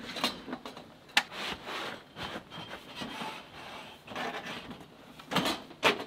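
Rubbing and scraping from a flat board being lifted and held against the yurt's wall, broken by sharp knocks, one just after a second in and a louder cluster near the end.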